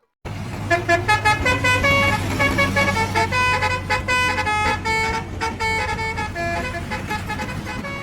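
Telolet bus horn playing a quick tune of short notes that step up and down, over a steadily running engine.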